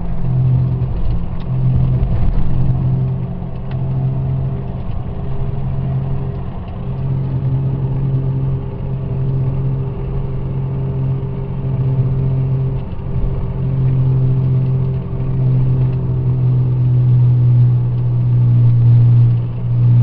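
Inside the cab of a 2002 Ford Ranger 4x4 on the road: a low howl from the failing driver-side front wheel bearing, over engine and tyre rumble. The howl pulses about once a second at first, then holds steady.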